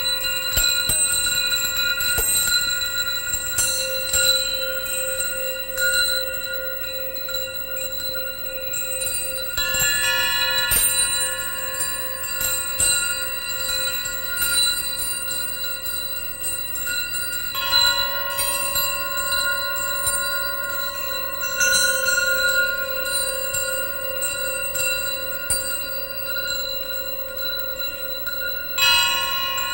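Suspended metal rods struck and left to ring, several clear bell-like tones sounding together and sustaining for many seconds. New strikes add fresh tones about four times, and one low tone wavers as it rings.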